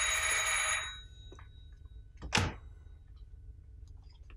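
Electric doorbell ringing for about a second: a rattling ring with steady high tones in it. About two seconds later comes a single short thunk from the door as it is opened.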